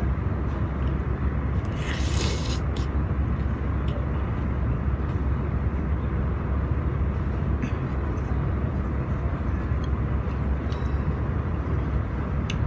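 Steady low background rumble, with a few faint clicks of chopsticks and a porcelain spoon against a ceramic rice bowl during eating, and a brief hiss about two seconds in.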